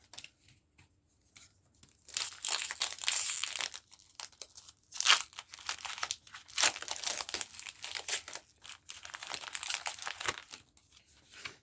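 A Pokémon TCG booster pack's foil wrapper crinkling and being torn open, in a run of irregular rustles and tears.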